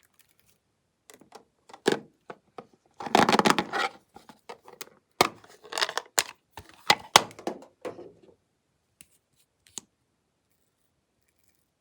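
Glossy slime being worked by hand, giving sticky clicks and crackles: a dense crackling burst about three seconds in, a run of sharp snaps over the next few seconds, then only a few scattered clicks.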